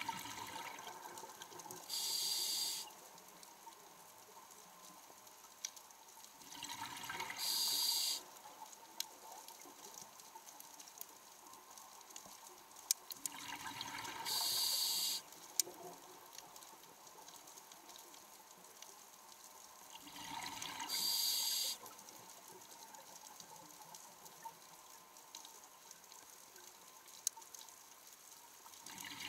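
A scuba diver breathing through a regulator underwater. Four times, about every six to seven seconds, a softer rush builds into a loud bright hiss about a second long. Faint scattered clicks sound between the breaths.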